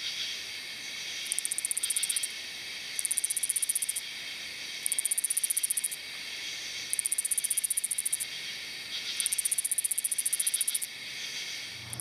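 Katydid calling: five high, pulsed buzzes, each about a second long and repeated every couple of seconds, over a steady night chorus of crickets and other insects.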